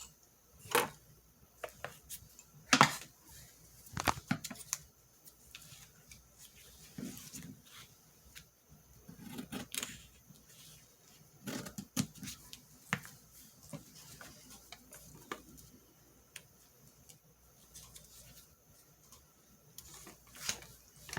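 Scissors snipping through paper, with scattered clicks and rustles of the paper being handled, at irregular intervals.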